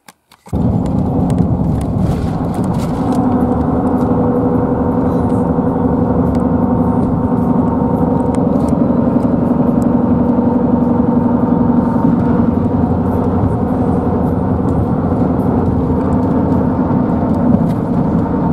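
Truck driving at road speed, heard from inside the cab: a steady drone of road and engine noise with a low hum that starts suddenly about half a second in.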